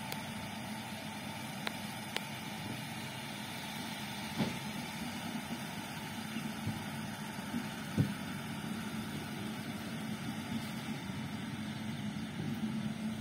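WAG9 HC electric locomotive running light at low speed, giving a steady low hum, with a few faint knocks along the way.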